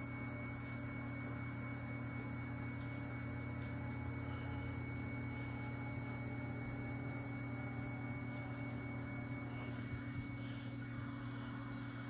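A powered-up 1983 Hurco KM3 CNC mill on a LinuxCNC retrofit gives off a steady electrical hum with several steady whine tones. A faint high ticking, about two to three a second, stops near the end.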